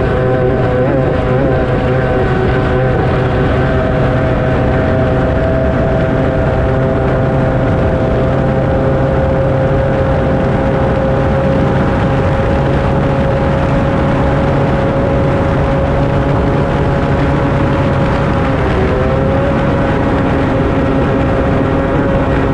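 Two-stroke stock racing outboard on a B Stock Hydro hydroplane, running at race speed with a steady, high-pitched engine note over rushing wind and water. The pitch dips briefly about three-quarters of the way through, then settles back.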